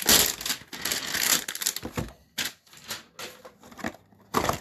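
Cardboard trading-card hanger box being opened and handled: a rasping scrape of cardboard for about a second and a half, then scattered scrapes and taps, with a louder knock near the end.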